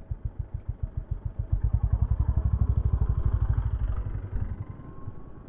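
Honda CB350 H'ness motorcycle's air-cooled single-cylinder engine running at low revs, with an even, rapid low beat of firing pulses. It grows louder about a second and a half in and eases off after about four seconds.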